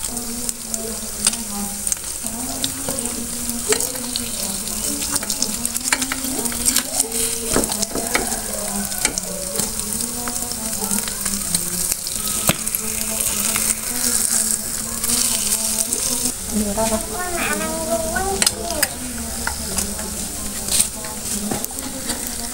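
Eggs sizzling as they fry in the cups of a multi-cup pan. Scattered small clicks and scrapes come from a metal spoon and a knife nudging and turning the eggs against the pan.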